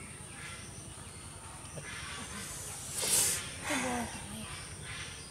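Steady high insect drone outdoors. About three seconds in, a short sharp hiss, then a brief vocal sound falling in pitch.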